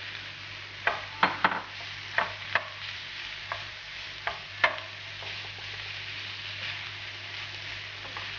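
Minced chicken sizzling in hot oil with onions in a frying pan, a steady sizzle throughout. A spoon knocks against the bowl and the pan about eight times in the first five seconds as the chicken is scooped in and spread, the loudest knock a little before the halfway point.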